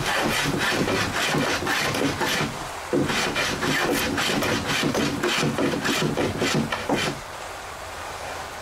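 Hand bench plane shaving wooden boat framing in quick repeated back-and-forth strokes, taking down high spots to fair the frame. The strokes stop about seven seconds in.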